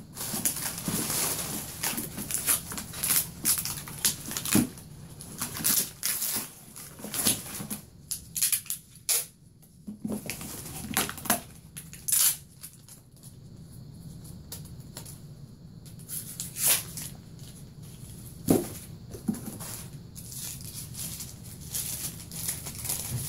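Tissue paper and foam packing peanuts rustling and crinkling in a cardboard box as hands rummage through them, in irregular bursts with a few light knocks, the sharpest about three quarters of the way through.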